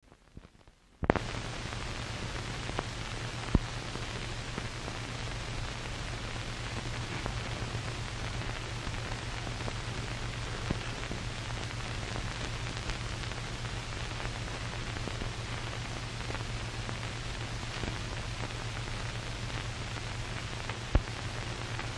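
Steady hiss with a low hum from an old film print's soundtrack, starting suddenly about a second in, with a few scattered clicks and pops.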